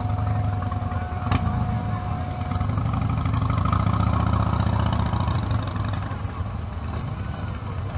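A procession of cruiser and touring motorcycles riding past at low speed, their engines running with a deep, low rumble that grows louder in the middle as the nearest bikes pass.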